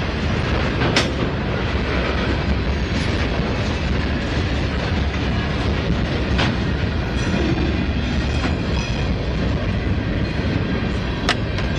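Freight train of tank cars and covered hopper cars rolling past, a steady rumble of wheels on rail with three sharp clacks spaced a few seconds apart.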